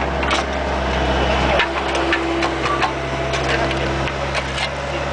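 Bobcat 430 mini excavator's diesel engine running, with scraping and knocking against the steel bucket as it works, picked up from inside the bucket. The engine note shifts about a second and a half in.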